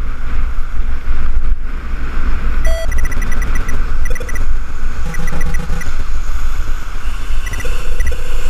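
Steady low rumble of wind and road noise on a moving camera's microphone, riding in city traffic. Faint electronic bleeps sound over it, with a held tone near the end.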